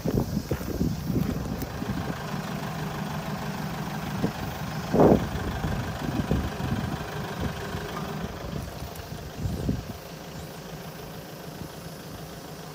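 Toyota Hiace's 1KD-FTV 3.0-litre four-cylinder turbodiesel idling steadily, with a few brief thumps over it, the loudest about five seconds in.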